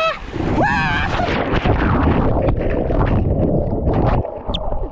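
Loud rushing and splashing water close around the camera during a fast water slide ride on an inner tube, with a brief excited yell near the start; the water noise stops sharply about four seconds in.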